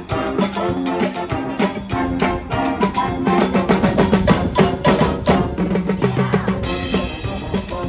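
School brass band with drum kit playing a lively tune, the drums keeping a steady beat under the brass.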